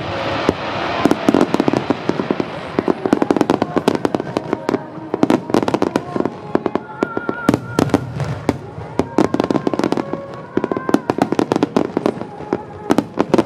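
A fireworks display: a dense, continuous barrage of bangs and crackling reports, many per second, with no pause.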